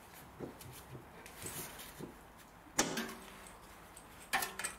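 Hand-work on car suspension parts as a new aluminium lower control arm is seated: scattered light knocks and clicks, with a sharper clunk that rings briefly about three seconds in and another pair of knocks near the end.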